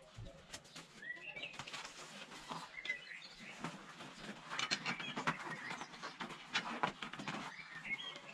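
A rubber inner tube and tyre being handled and worked onto a bicycle wheel rim, with rubbing, rustling and sharp clicks that come thickest in the second half. Birds chirp briefly now and then over it.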